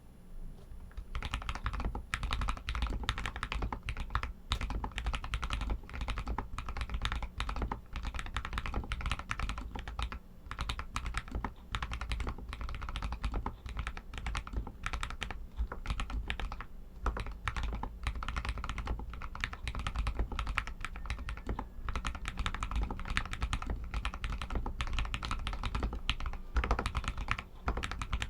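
Royal Kludge RK61 mechanical keyboard with Outemu Red linear switches being typed on: a dense, continuous stream of key clacks that starts about a second in.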